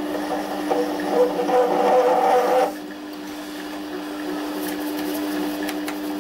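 Güde GMD 400 mini metal lathe running at low speed with a steady motor hum, while a parting tool cuts a marking groove into the spinning threaded stud. The cut is louder and rougher for the first couple of seconds and stops abruptly, leaving only the lathe's hum.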